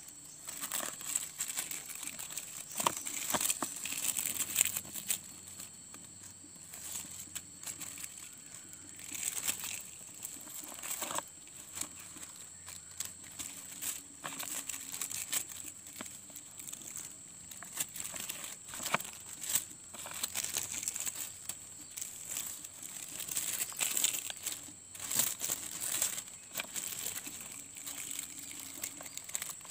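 Clear plastic grafting tape crinkling and rustling in irregular small crackles as it is stretched and wound around a grafted seedling's stem to bind the graft union.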